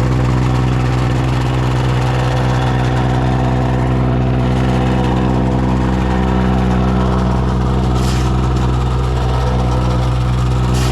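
Truck engine running steadily at an even pitch, a deep drone that stays the same throughout.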